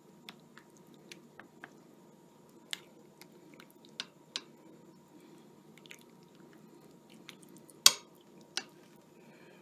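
A spoon dishing saucy chicken out of a slow cooker onto a bowl of rice: scattered light clicks and taps of the spoon against the crock and the bowl, with soft wet squishes of the food. One sharper clack comes about eight seconds in.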